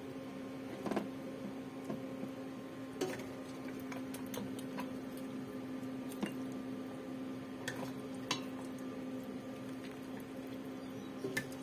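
A ladle scoops wet stewed chicken and peanuts from a steel pot onto a ceramic plate, with squishy, liquid sounds and a few sharp clinks and knocks of the ladle on the pot and plate. A steady low hum runs underneath.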